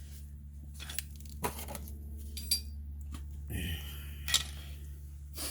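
Small metal parts clinking and knocking as they are handled, a few separate sharp clicks spread out, over a steady low hum.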